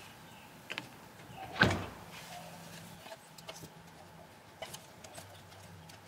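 Handling noise as a rubber window gasket is worked onto the edge of a glass pane on a steel workbench: scattered light clicks and taps, with one louder knock about a second and a half in. A faint steady low hum runs underneath.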